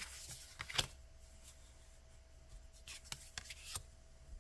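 Tarot and oracle cards being picked up and laid down on a cloth-covered table. There is one sharp tap about a second in, then a quick run of soft taps and slides near the end as a new spread is set out.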